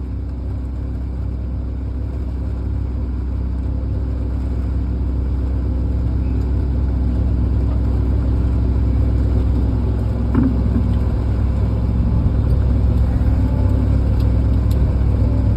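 Heavy engine running steadily at a constant pitch, growing slowly louder, with a short knock about ten seconds in.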